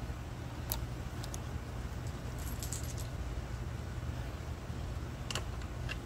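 Small metal tools and hardware clinking and jingling a few times, with a short jingling cluster about halfway through, over a steady low rumble.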